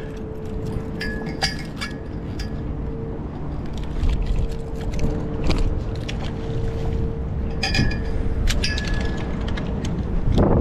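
Light metallic clinks and taps of fishing pliers against a lure and hook, in two short clusters about a second in and again later, over a steady background hum.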